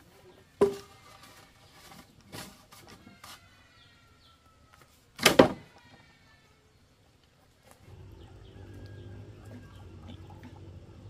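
A few sharp knocks, the loudest a double knock about five seconds in, then a steady low hum that starts near the end.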